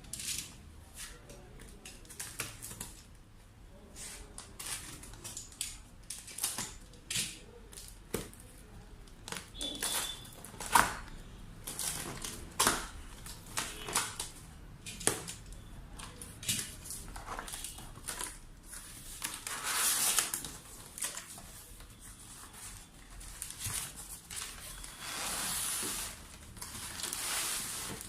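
Unboxing a monitor by hand: the cardboard box and its packing are opened and handled, with scattered knocks and clicks and longer rustling, scraping passes of cardboard and packing material, one about two-thirds through and another near the end.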